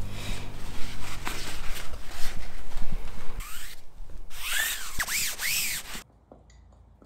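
Gloved hand rubbing and smoothing over a plastic-covered fiberglass layup, with a run of squeaky strokes that rise and fall in pitch near the end. The sound cuts off abruptly about six seconds in, leaving only faint quiet.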